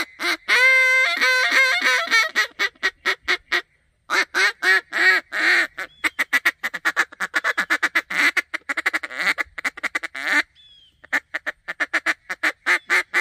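A Land N Gear Sweet Talk duck call, a close-range mallard hen call, blown in strings of quacks. It opens with a few longer drawn-out quacks, then quicker runs of short notes, with two brief pauses between sequences.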